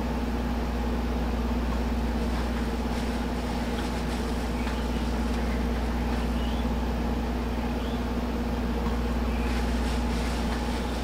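A steady low mechanical hum with a few held tones, unchanging throughout, with faint light ticks now and then.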